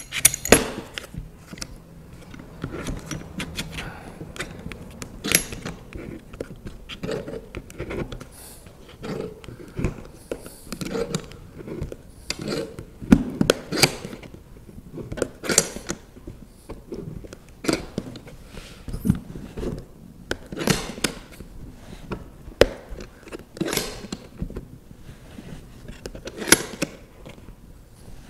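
A large C-clamp being screwed down by hand onto hot-water-softened wooden strips in a bending form: irregular metallic clicks and clinks from the screw and handle, with a few louder knocks spread through.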